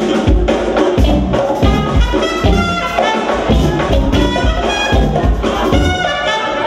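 Live jazz-fusion band playing: drum kit and bass guitar keeping a steady groove under electric guitar and keyboards, with a trumpet line on top.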